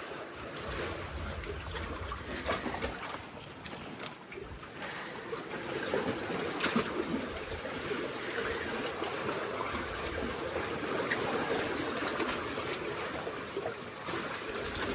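Seawater lapping and trickling among tetrapod breakwater blocks, with a sharp click about seven seconds in.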